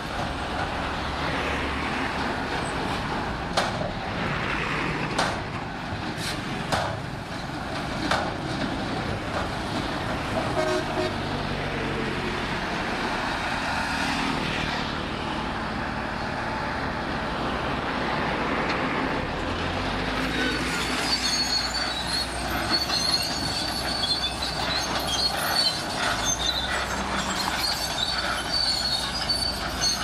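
Diesel engines of a Shantui SD22 crawler bulldozer and a dump truck running as the truck tips a load of soil and rock, with several sharp knocks in the first few seconds. From about two-thirds in, repeated high squeaks join in as the bulldozer's steel tracks move.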